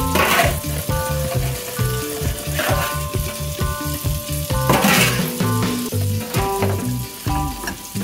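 Faucet water running and splashing into a stainless steel sink, with a few brief swishes as a dish brush scrubs and water is tipped off a toaster-oven tray. Background music with a steady bass line plays throughout.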